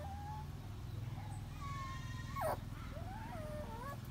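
Sleeping puppies whimpering: short high whines, then a longer held whine about halfway through that drops sharply in pitch at its end, then several short rising and falling squeaks, over a steady low hum.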